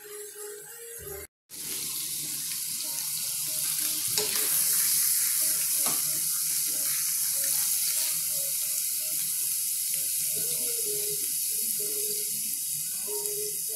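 Ground beef and its grease sizzling in a hot cast-iron skillet: a steady hiss that comes in after a brief dropout near the start and grows louder about four seconds in.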